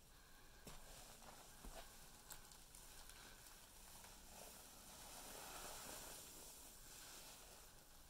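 Faint squish and crackle of a wet sponge caked in Comet cleansing powder being squeezed in the hands, the powder turning to paste; a little louder a bit past the middle.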